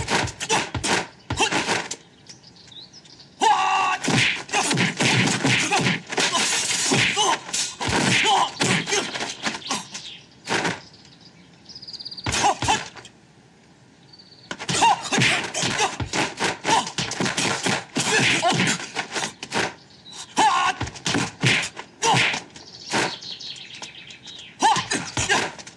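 Fast flurries of martial-arts film fight effects: punches and blocks landing in quick runs, with clothing whooshing. Two lulls break the flurries, about two and about eleven seconds in. Faint bird chirps sound in the pauses.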